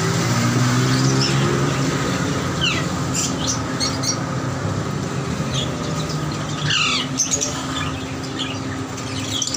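Many caged budgerigars and small parrots chirping and squawking in scattered short calls, loudest about seven seconds in, over a steady low mechanical drone.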